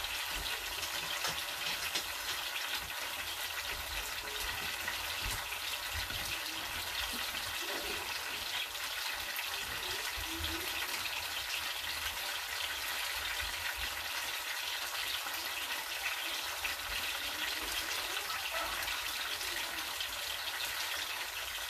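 A milky mixture simmering in a frying pan on an electric stove, a steady crackling hiss of small bubbles as it cooks down toward browning for a topping.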